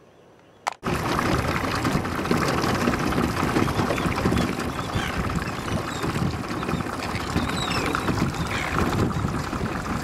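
Wind buffeting the microphone and water rushing past a boat moving on open sea, starting suddenly about a second in, with a few faint calls from a flock of seabirds over the water.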